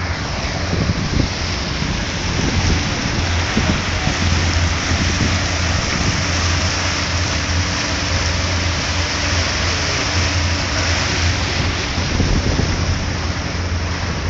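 Motorboat under way: a steady rush of churning wake water and wind on the microphone over a constant low engine drone.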